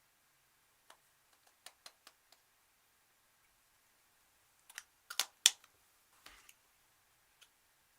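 Slime being pressed and squeezed, giving a string of sharp, wet clicks and pops, loudest in a cluster a little past halfway.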